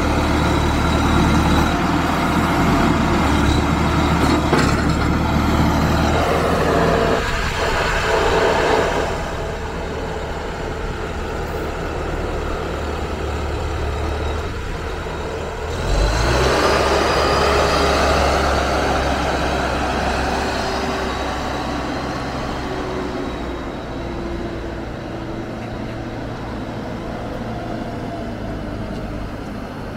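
Baoding wheel excavator's diesel engine running as the machine is driven. It drops in level about a third of the way in, comes back suddenly louder around halfway, then gradually fades.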